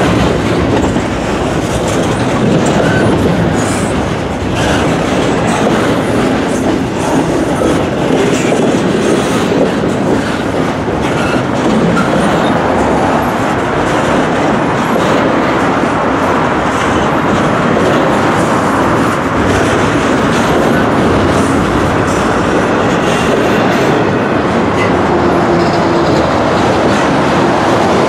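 Double-stack intermodal well cars of a long freight train rolling past close by: a steady, loud rumble of steel wheels on the rails, with clickety-clack as the wheels cross rail joints.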